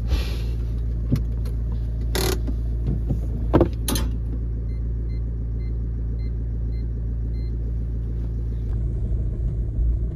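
Steady low rumble heard from inside the cab of a Ford Transit Connect van. A few short knocks and rustles come in the first four seconds, and a run of about six faint short beeps follows in the middle.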